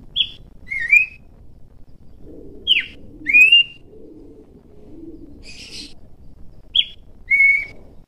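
Horsfield's babbler (pelanduk semak) calling: three two-note phrases, each a short high falling note followed by a rising whistle, about three seconds apart. A brief rustle comes between the second and third phrases.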